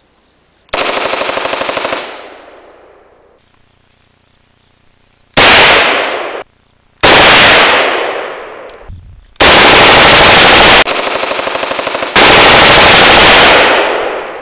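FN FNC 5.56 mm rifle firing on full automatic: about six strings of rapid fire, each about a second long, with the report echoing away after each string. Very loud.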